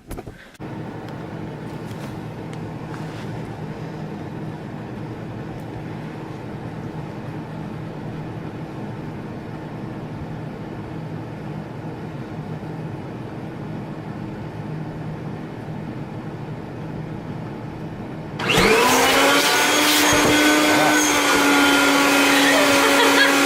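A vacuum cleaner switched on near the end, its motor spinning up quickly in pitch to a loud, steady whine. Before it, a steady low hum.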